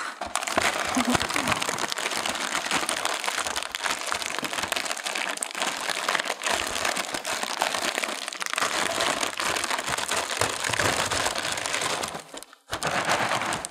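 Plastic liner bag of a cereal box crinkling as it is pulled and worked open by hand, steady crackling with a short break near the end.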